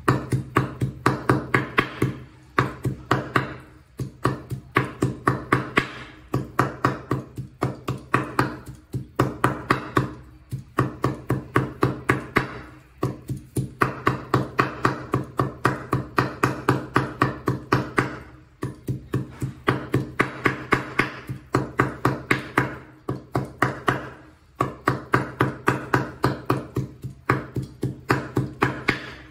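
Kitchen knife rapidly chopping and mincing pork belly on a wooden cutting board, about six knocks a second in runs of a few seconds with brief pauses between them. Each chop carries a low ringing note from the board.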